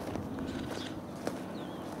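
Footsteps crunching through packed snow, a few steps, with faint bird chirps in the background.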